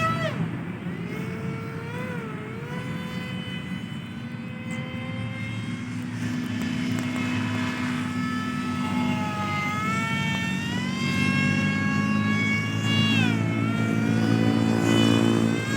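Whine of a radio-controlled Su-27 model plane's motor, its pitch rising and falling with the throttle. It dips about two seconds in, climbs from about ten seconds, drops sharply near thirteen seconds and climbs again near the end, over a low steady rumble.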